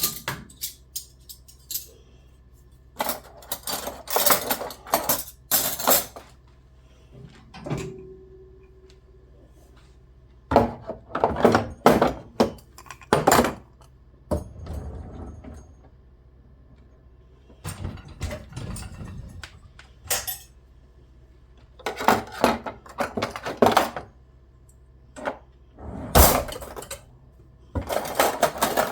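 Kitchen items being handled and put down, clinking and clattering in short bursts of sharp knocks, with quiet gaps between.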